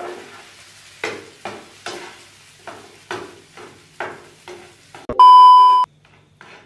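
Metal spatula scraping and knocking against a frying pan while fried rice is stir-fried, with a faint sizzle, about two to three strokes a second. About five seconds in, a loud steady beep lasts under a second.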